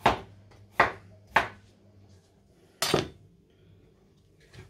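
Kitchen knife slicing a carrot into rings on a bamboo cutting board, each cut ending in a sharp knock of the blade on the wood. Three cuts come about half a second apart, and a fourth follows after a short pause.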